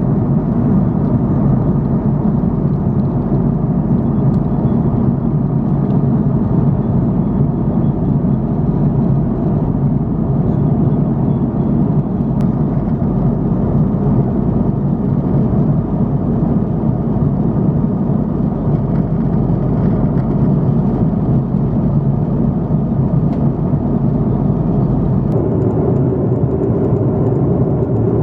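Steady engine and airflow noise heard inside the passenger cabin of an Airbus A330-300 airliner, a constant low rumble. Near the end the deepest part of the rumble drops away and the tone shifts slightly.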